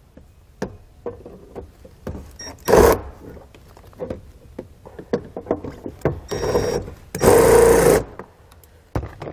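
Cordless Milwaukee drill spinning a 10 mm socket to back out a plastic bolt, running in three short bursts: one about three seconds in, then two longer runs near the end, the last the loudest. Light clicks of the tool being handled come between the runs.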